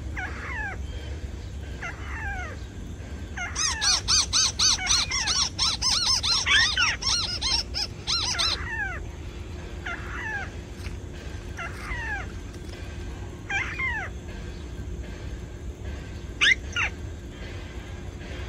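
A bird calling from a camouflage-covered lure cage at a trap site: short falling calls about once a second, broken by a loud, rapid chattering run lasting about five seconds, then the spaced falling calls again, with two sharp calls near the end.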